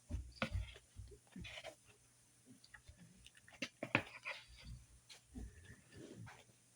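Close-up chewing of a mouthful of raw salad: irregular crunches and wet mouth sounds.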